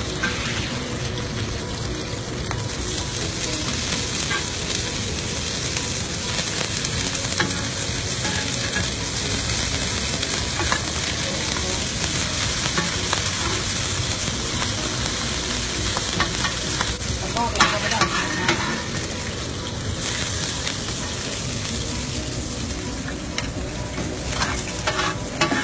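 Batter and bean sprouts frying in hot oil on a wide flat pan: a steady sizzle. Metal spatulas scrape and tap on the pan now and then, most clearly in a cluster about two-thirds of the way through and again near the end.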